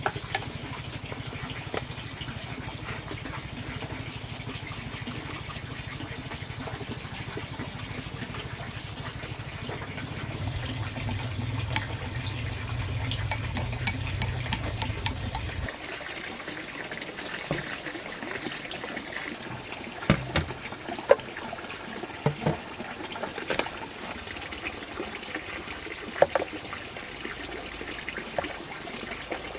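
Water running or being poured, with a low steady hum that cuts off suddenly about halfway through. After that come several sharp knocks, like utensils or containers being set down.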